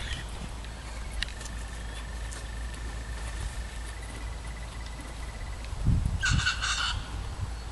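A short bird call of two or three quick notes about six seconds in, the loudest sound here, over a faint thin whistle earlier on. A horse's hooves thud softly on the sand just before the call.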